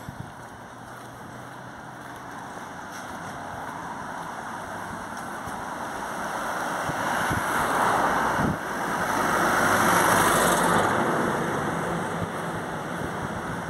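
A motor vehicle driving past: its engine and tyre noise grows slowly louder, is loudest around eight to ten seconds in, then fades.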